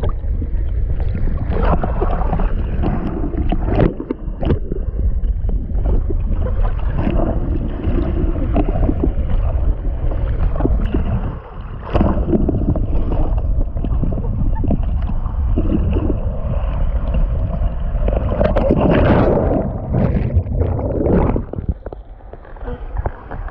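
Rushing water and splashing with heavy wind buffeting the microphone, as on a ride down a water slide, with irregular knocks and splashes throughout.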